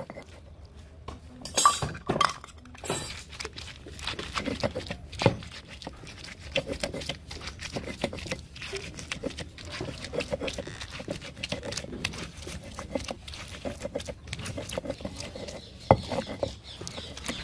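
Stone muller (batta) rubbed and rocked back and forth on a stone grinding slab (sil), crushing spice paste and chopped tomatoes with a steady run of gritty scrapes and small knocks. A few sharp clinks of a glass bowl on the stone come about two seconds in, and a loud knock near the end.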